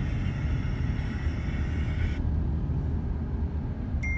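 Steady low rumble inside a car's cabin: engine and road noise. In the last moment a thin, steady high tone starts.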